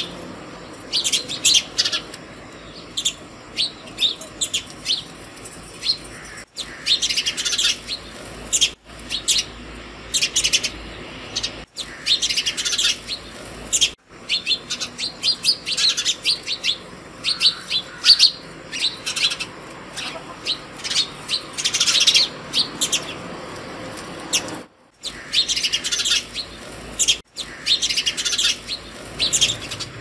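A group of house sparrows chirping, in quick overlapping runs of short chirps that come in bouts with short pauses between.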